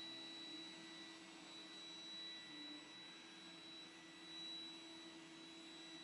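Faint, steady motor whine of an iRobot Roomba 980 robot vacuum running on carpet, a high tone over a lower hum.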